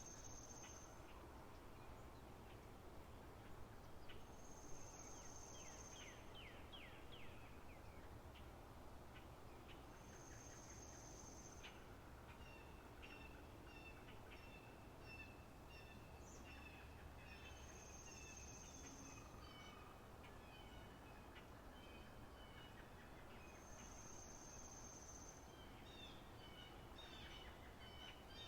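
Faint spring-meadow nature ambience of birdsong: scattered chirps and trills, with a high, thin, steady note about a second long repeated every five or six seconds.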